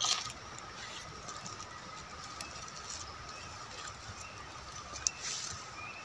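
Forest ambience: a steady high-pitched insect drone with a faint background hiss. Brief rustling noises come at the start and about five seconds in, and a few short rising bird chirps sound near the end.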